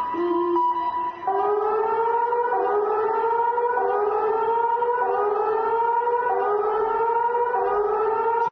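Electronic warning siren sounding a rising whoop that repeats about once a second, after a steady tone in the first second or so.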